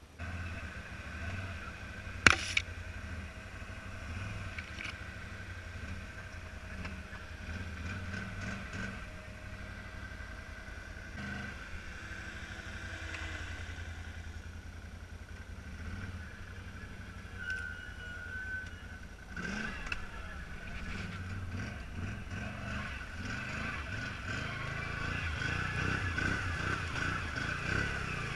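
ATV engine running at low speed as the machine crawls over rough ground, with one sharp knock about two seconds in. The engine grows louder near the end.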